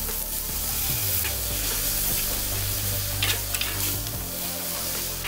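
Beaten egg and rau bò khai greens sizzling steadily in hot lard in a wok, stirred with a metal ladle that scrapes against the pan a few times about three seconds in.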